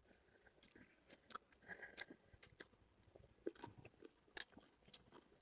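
Faint chewing and small mouth and tableware clicks of people eating, scattered and irregular over near-silent room tone.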